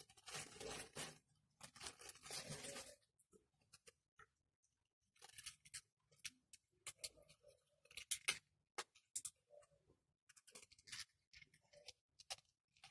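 Packaging being handled and pulled at: intermittent rustles and sharp clicks in short bursts, with quiet gaps between, as a figurine is worked out of its box.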